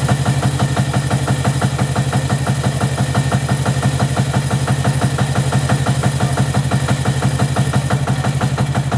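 Small diesel engine of a 10.25-inch-gauge miniature diesel locomotive idling at a standstill, with an even, rapid beat.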